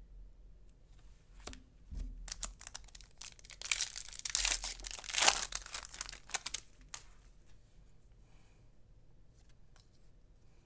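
A trading card pack's wrapper being torn open and crinkled by hand: a dense crinkling from about two seconds in, loudest in the middle, stopping around six and a half seconds. A few light ticks of cards being handled follow.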